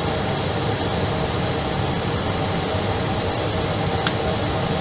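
Steady, even hiss with a faint hum, and a short click about four seconds in.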